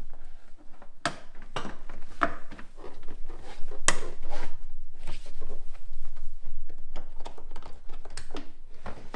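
Plastic boot sill trim panel being pressed and clipped back into place: a series of sharp plastic clicks and knocks, the loudest about a second in and again near four seconds in, with lighter ones after.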